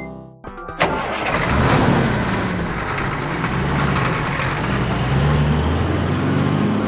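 A vehicle engine starting with a sharp crack just under a second in, then running loudly with a noisy rumble whose pitch rises and falls as it revs.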